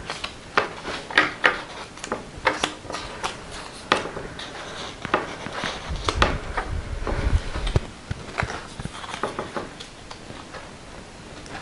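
Paper cut-outs and cards rustling and tapping as they are slid into a paper pocket on a table, a run of many small clicks and scrapes, with a low rubbing rumble for a second or two midway.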